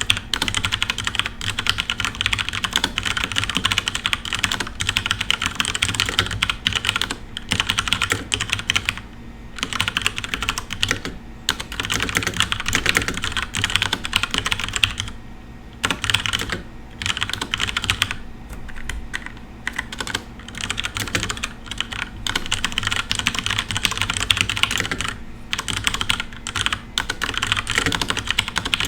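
Fast typing on a FILCO Majestouch Ninja Tenkeyless mechanical keyboard with brown switches: a dense run of keystroke clacks, broken by brief pauses a few times.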